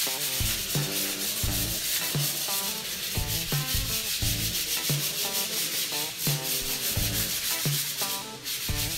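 Rapid hand sanding with 120-grit sandpaper, rubbing back and forth over a putty-textured wall as an even, scratchy hiss. Background music with a steady beat plays along with it.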